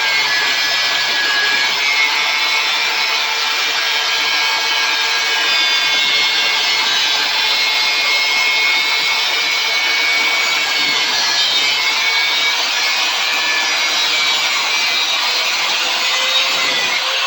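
Angle grinder with a cut-off wheel cutting through a steel tool piece: a loud, steady, high whine.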